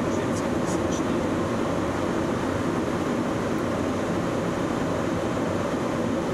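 Steady cockpit noise of a Yak-40 in flight, the even rush of airflow and its three tail-mounted turbofans, with a few faint clicks in the first second.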